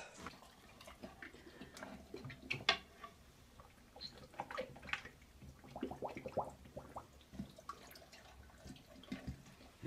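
Faint, irregular splashing and slurping of water as a dog pushes its muzzle around in a toilet bowl.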